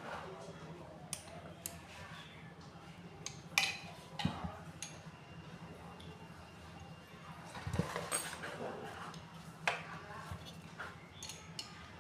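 Scattered clicks, knocks and metallic clinks of tools and metal pump parts being handled during a water-pump repair, the loudest knocks about three and a half and eight seconds in, over a faint steady hum.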